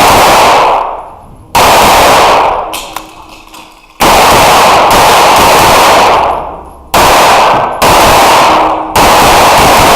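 Pistol shots fired in quick succession, singly and in close pairs with pauses of about a second between, in an indoor range. Each shot overloads the recording and rings on in a long echo off the walls.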